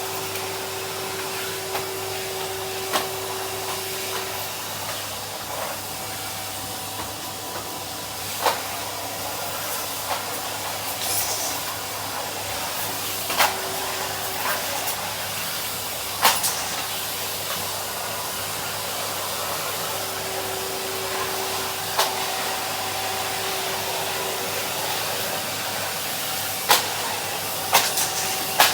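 Henry cylinder vacuum cleaner running steadily, a motor hum that fades and returns under an even rush of air, with about a dozen sharp clicks scattered through it.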